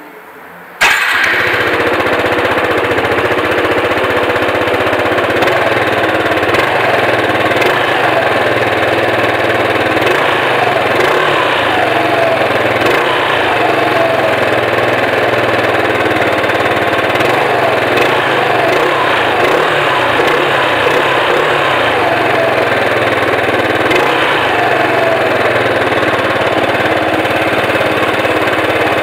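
Yamaha XMAX 125 scooter's single-cylinder four-stroke engine starting abruptly about a second in, then idling steadily through a handmade exhaust.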